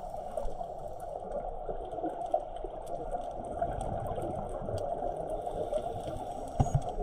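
Muffled underwater noise of a scuba dive: a steady rushing, crackly wash of water with the gurgle of divers' exhaled regulator bubbles, and a brief low thump near the end.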